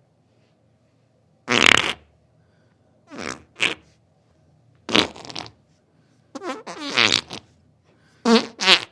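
A series of about six separate farts with short silences between them: some brief and noisy, others longer with a wavering, buzzing pitch.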